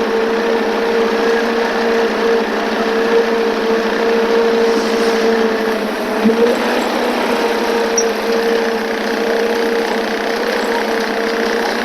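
Forklift running with a steady hydraulic whine as the mast raises the forks.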